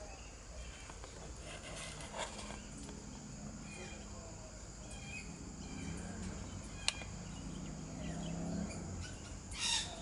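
Faint, scattered chirping calls of baby Princess Parrots begging for food, with a single sharp click about seven seconds in.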